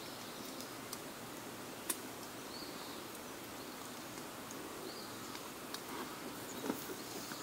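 Small wood campfire crackling faintly, with a few sharp pops over a steady low hiss, the loudest pop about two seconds in.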